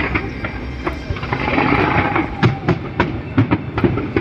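Fireworks exploding overhead: a crackling hiss in the first half, then a fast series of sharp bangs and pops.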